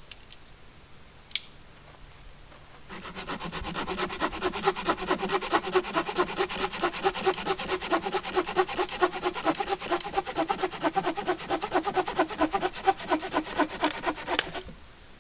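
Hand saw cutting wood in fast, even strokes, starting about three seconds in and stopping just before the end.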